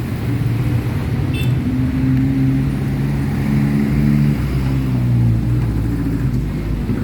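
Yamakoyo ZS1130G single-cylinder diesel engine turning over, with a steady low hum that wavers slightly in pitch.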